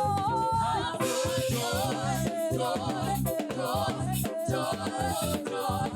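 Gospel praise music: a choir singing over a live band with bass and drums, with a steady beat.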